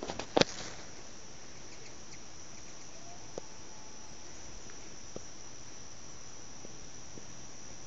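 Crickets trilling in a steady, unbroken high-pitched drone. There are a couple of sharp knocks right at the start and a few faint ticks later.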